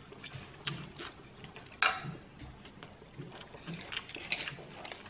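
Eating sounds: a mouthful of instant noodles being slurped and chewed, with small clicks of chopsticks against a bowl and a sharper click about two seconds in. A plastic water bottle is handled near the end.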